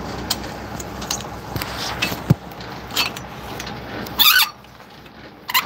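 Semi-trailer landing gear crank being handled: scattered metallic knocks and clanks, with a louder squeaky rattle about four seconds in. A truck engine idles underneath and drops away near the end.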